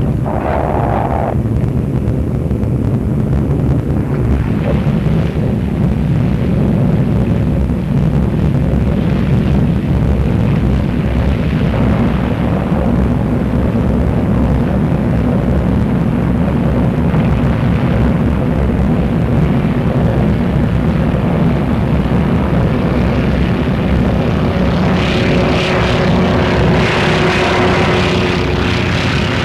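Supermarine Walrus amphibian's Bristol Pegasus radial engine running steadily at an even level, with more hiss joining in near the end.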